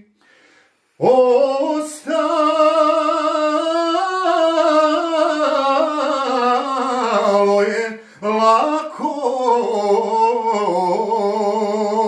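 A man singing solo in long drawn-out held notes with vibrato and ornamented turns, the closing notes of a Balkan folk song. The singing starts about a second in and breaks briefly for a breath near eight seconds.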